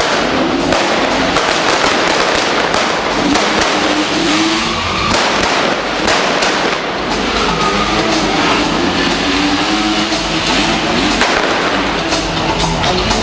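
Stunt motorcycle engines revving and accelerating, their pitch rising and falling, over loud show music.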